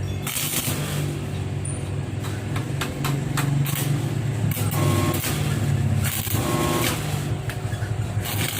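An engine running steadily, with intermittent scraping and knocking sounds over it.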